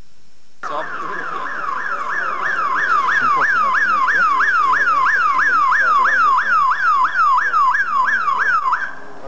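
Electronic siren on a car with a roof light bar, wailing rapidly up and down about two and a half times a second. It starts under a second in, grows louder as the car comes by, and cuts off suddenly near the end.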